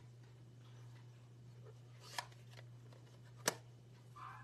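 Two sharp plastic clicks, the second louder, from a stamp ink pad case being handled, closed and set down, over a steady low electrical hum.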